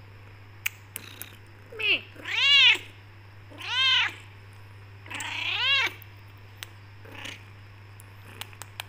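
A Persian cat meows four times over about four seconds, each call rising then falling in pitch, the last one rougher. A faint short meow follows. The calls run over a steady low hum and a few small clicks. They are demanding meows: she wants to be let out of the room.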